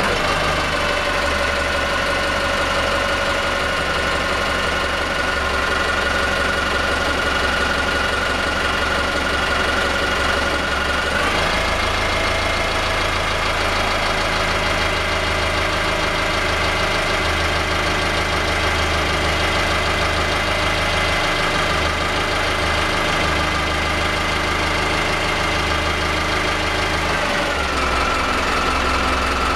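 Turbocharged inboard marine diesel engine running steadily in an open engine bay. About eleven seconds in its speed steps up to a higher steady pitch, and near the end it drops back to a lower speed.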